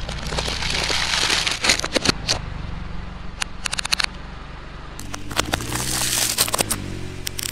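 Disposable plastic lighters cracking and snapping under a slowly rolling car tyre: a series of sharp cracks, some in quick clusters, over the car's low steady rumble.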